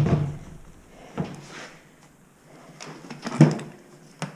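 A few separate knocks and clunks of handling, the loudest about three and a half seconds in.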